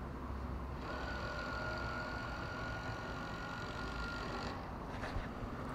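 Fishing reel being cranked to retrieve a topwater frog: a steady, even whir that starts about a second in and stops abruptly after about three and a half seconds, over a low steady rumble.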